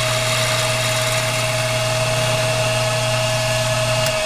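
Machinist lathe running steadily with a steady whine, turning a pipe blank; a low hum drops out about four seconds in.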